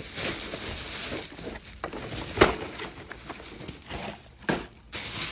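Groceries being handled: rustling packaging, with sharp knocks as items are set down or moved, the loudest about two and a half seconds in.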